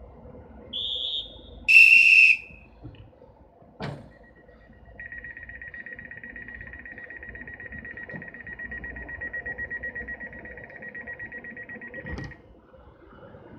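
Railway departure whistle: a short high blast, then a louder, shrill one about two seconds in. After a click, a passenger coach's door-closing warning sounds as a rapidly pulsing beep for about seven seconds. It ends in a thud as the door shuts.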